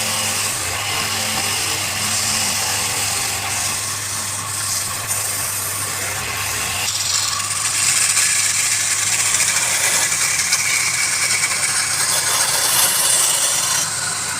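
Wood lathe running with a steady motor hum while a turning tool cuts the spinning wood, giving a shifting scraping hiss that grows louder about halfway through.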